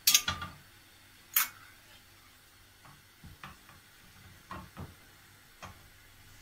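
Kitchen clatter from a metal spoon and a large nonstick pan: a few sharp clicks near the start and about a second and a half in, then light, scattered taps.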